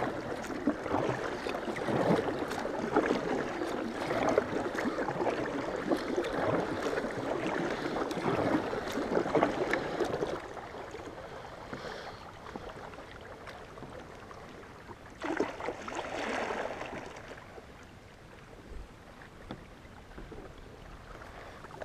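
Water sloshing and splashing around a kayak as it is paddled, louder for the first half and again briefly near the end.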